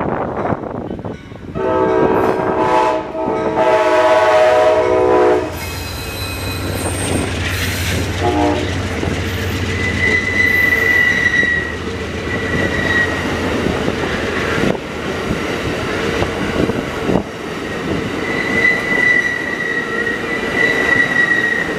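Amtrak passenger train passing close by. The diesel locomotive sounds its chime horn in a long chord over a deep engine rumble. Then the double-deck Superliner cars run past in a steady clatter of wheels on rails, with a high wheel squeal that comes and goes.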